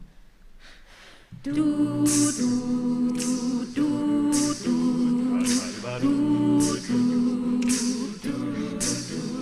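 Mixed-voice a cappella group singing a wordless backing pattern of held chords that change about once a second, each with a short hissing accent on top. The singing starts about a second and a half in, after near quiet.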